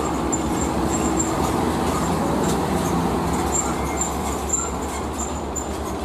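Diesel engine of a UD Quester tractor unit hauling a container trailer as it drives past, over steady road traffic noise.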